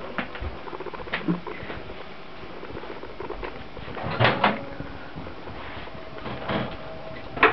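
Scattered knocks and bumps of kitchen handling, like cupboard or door knocks, with a louder cluster about four seconds in and two sharp knocks near the end.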